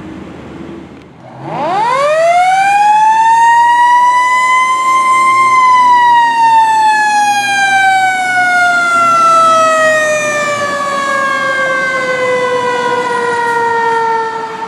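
Mechanical fire truck siren winding up and coasting down. It starts about a second and a half in, climbs steeply to a high whine, then falls slowly in pitch for about nine seconds before cutting off.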